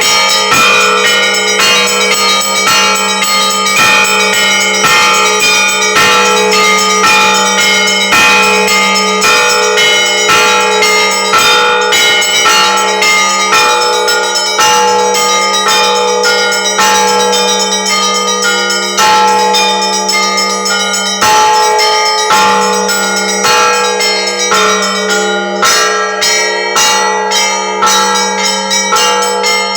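Russian Orthodox church bells ringing loudly, with small bells struck in quick succession over the steady hum of a large bell.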